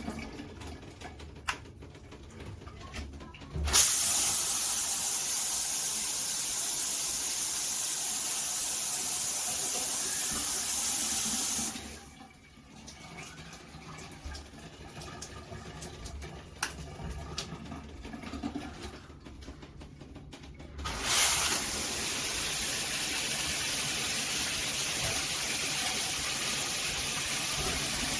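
Shower head spraying water in a steady hiss, turned on a few seconds in, shut off after about eight seconds, and turned on again about three-quarters of the way through. Between the sprays there are small clicks and knocks.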